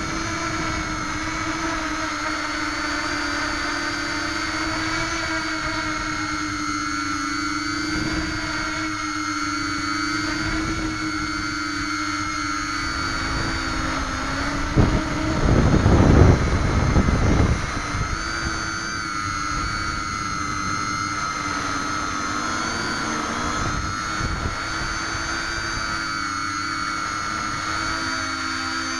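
A small scratch-built quadcopter's four brushless motors and propellers whining steadily, heard from the camera on its frame, their pitch wavering slightly as the throttle shifts. About fifteen seconds in comes a louder rush of low, rumbling noise that lasts around three seconds.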